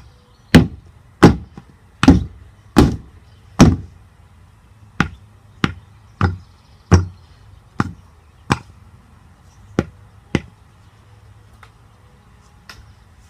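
A hammer hits a frozen slime die over and over: about a dozen sharp blows, the first six roughly one every 0.7 s. After a short pause come several more spaced blows and a couple of lighter taps near the end.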